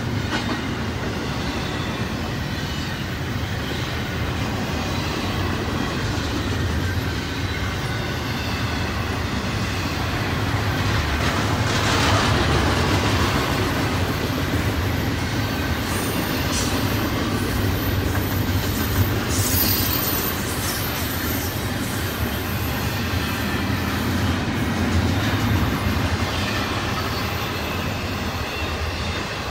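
Double-stack intermodal container cars of a freight train rolling past at speed: a steady rumble of steel wheels on rail with clickety-clack over the joints. It swells louder about twelve seconds in, and thin, high wheel squeals come through now and then.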